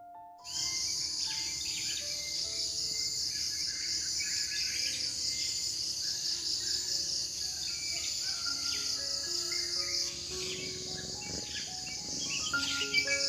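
A chorus of crickets, a dense, high, pulsing trill that comes in suddenly about half a second in, with a slow piano melody playing over it.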